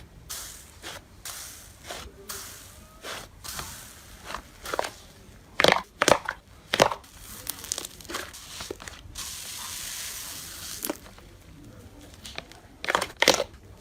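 Slime being squished and pressed by hand, giving irregular sharp clicks and pops, with a steady hiss lasting about two seconds past the middle.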